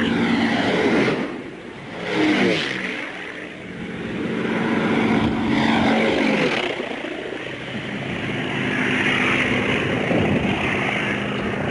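Boeing B-17 Flying Fortress's four radial engines droning as it passes low overhead, the pitch dropping as it goes by. A few seconds later a single-engine WWII propeller fighter passes low overhead, its engine note also falling as it passes.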